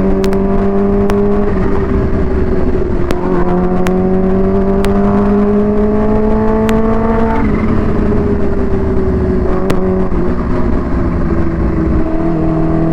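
Kawasaki Ninja H2's supercharged inline-four engine with a Vandemon exhaust, heard on board while riding. The engine note climbs slowly through long pulls, falls away briefly about a second and a half in and again past the halfway point, then eases down and steadies. A few sharp clicks come through on top.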